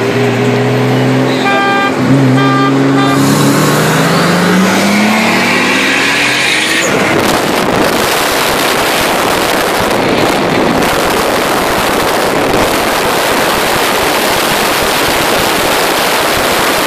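Car engine accelerating hard at full throttle in a roll race, its pitch climbing steadily for about seven seconds, with a horn-like toot sounding twice early on. Then loud wind buffeting the microphone at speed drowns it out for the rest.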